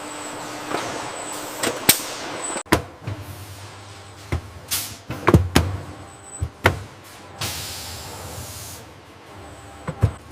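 Machinery clatter: a string of sharp clicks and knocks, over a low hum, with a burst of hiss a little past halfway.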